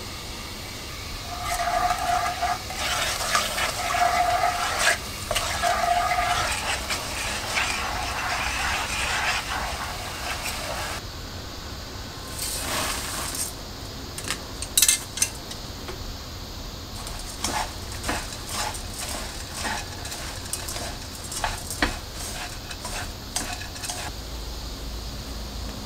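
Seasoning sauce bubbling and sizzling in a frying pan for about the first ten seconds. Then a silicone spatula stirs small dried anchovies in the pan, with scattered scraping and clicking against it and one sharp click near the middle.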